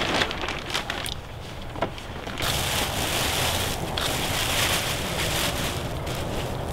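Wind rushing on the microphone, a steady noise that drops back about a second in and comes back stronger a little later.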